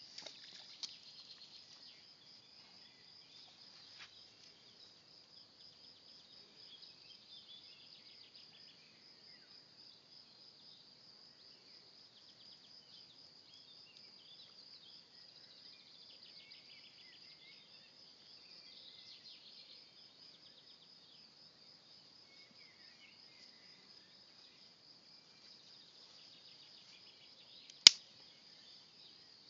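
Faint, steady high-pitched trilling of insects in the grass. A single sharp click near the end stands out as the loudest sound.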